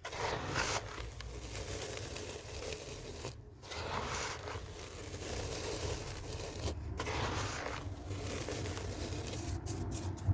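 Dry cement chunks being crumbled, a grainy crunching and scraping in stretches broken by brief pauses about three and a half and seven seconds in, with a few sharp cracks near the end.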